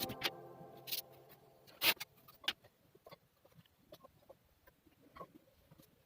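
A few scattered short clicks and taps with quiet between them, the loudest about two seconds in.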